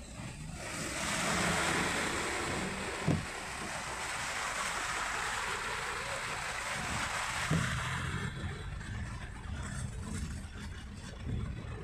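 Floodwater rushing and spraying against a car as it and passing vehicles wade through a flooded road in heavy rain, heard from inside the car over a low engine rumble. The rush fades about eight seconds in, and there are a couple of dull thumps.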